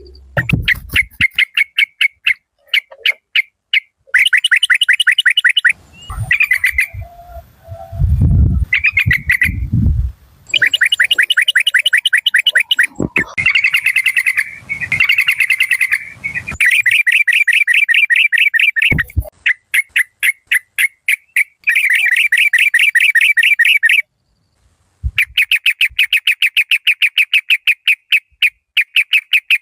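Yellow-vented bulbul calling in rapid bouts of repeated chattering notes, several a second, with short pauses between bouts. A few low thumps sound between about 6 and 10 seconds in.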